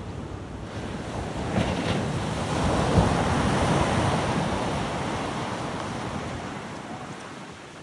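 Ocean surf: a wave breaking and washing up the beach, swelling about a second in, loudest around three seconds, then fading away. Wind buffets the microphone underneath.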